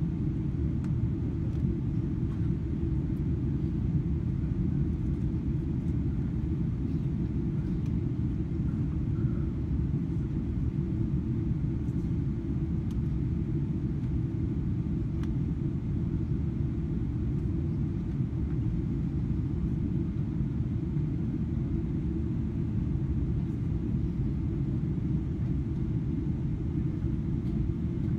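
Steady low rumble of cabin noise inside a Boeing 777-300ER airliner, heard from a window seat, with no change in level.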